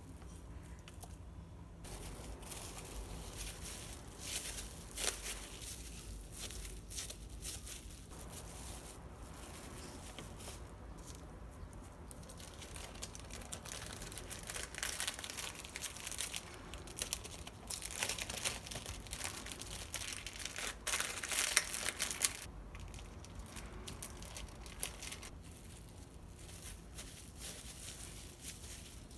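Crinkly wrapping material being handled, crumpled and torn, in irregular crackling bursts that are busiest about two-thirds of the way through.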